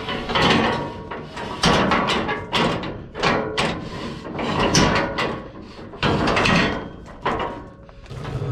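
A quick run of clanks and knocks, about two a second, from metal parts and tools being handled while work is done on a combine.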